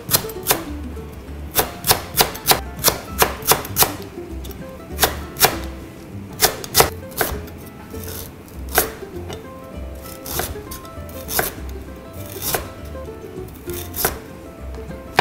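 Chef's knife slicing lemongrass and then galangal on a plastic cutting board: a run of sharp knife knocks, quickest in the first few seconds and more spaced out later.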